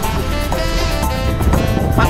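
Background music with steady held notes over a low bass.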